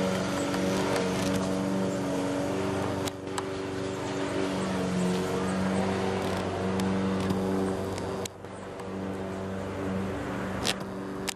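An engine running steadily at an even pitch, with a few sharp clicks about three seconds in and again near the end.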